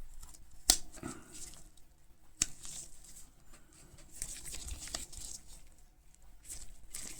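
Handling noise from a folding military pocket knife being turned over in the hands: two sharp clicks under a second and a half apart, then soft rustling and scraping.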